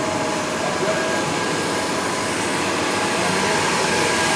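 Shrink-wrap tunnel's blower fan running, a steady rush of air with a faint whine in it.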